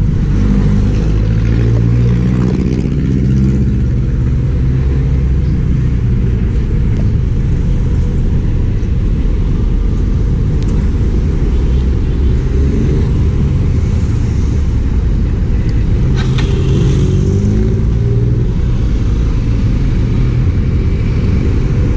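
A vehicle's engine running steadily on the road, its pitch rising and falling a little as it goes.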